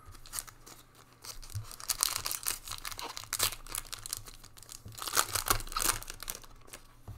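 Foil Panini Prizm football card pack being torn open and crinkled by hand, in two spells of crackling: one from about two seconds in and another near the end.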